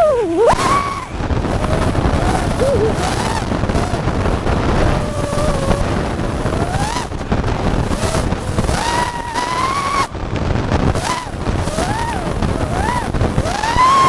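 FPV quadcopter's motors whining, the pitch sliding up and down with the throttle and climbing high around two-thirds of the way through, over a steady rush of wind and prop noise.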